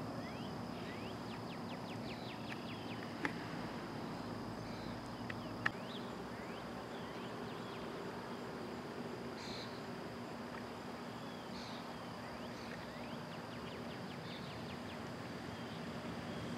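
Outdoor ambience: a steady high insect trill with scattered short bird chirps over it. Two small sharp clicks come about three and six seconds in.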